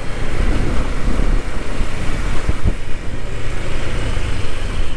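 Wind rushing over a helmet-mounted microphone, over the steady low drone of a motor scooter's engine and tyres at low speed.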